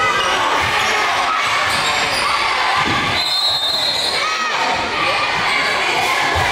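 Crowd of spectators talking and calling out in an echoing school gym during a basketball game, with a basketball bouncing on the hardwood floor. A brief high squeak comes about three seconds in.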